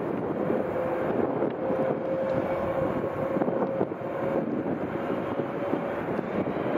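Boeing 717 jet engines at taxi power, a steady rush with a faint held hum, with wind buffeting the microphone.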